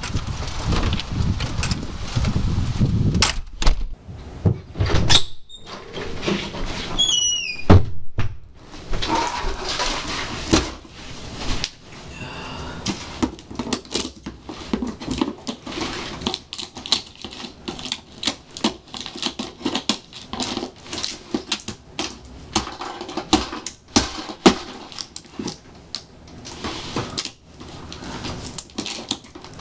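Scissors snipping and scraping through packing tape and cardboard on a shoebox, a dense irregular run of quick clicks and scratches. Before that, in the first seconds, a door opening.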